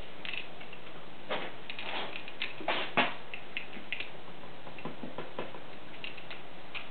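Light wooden clicks and clacks from a popsicle-stick scissor lift, pinned with thin dowels, as it is folded and stretched out by hand; the sharpest click comes about three seconds in.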